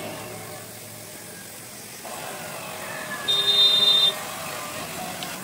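A single vehicle horn toot lasting under a second, about three seconds in, over steady background noise.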